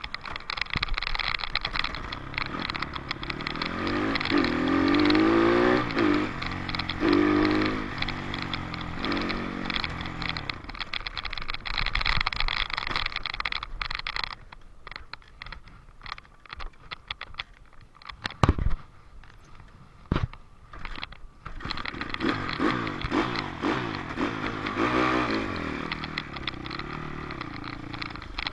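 Dirt bike engine pulling up through the revs several times, its pitch climbing, then easing to a quieter, uneven run through the middle with two sharp knocks, before revving up again near the end.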